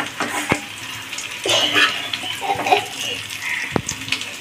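Steel spoon scraping and tapping against a non-stick kadhai as fried potato pieces are scooped out of hot oil, with the oil sizzling; a few sharp taps stand out.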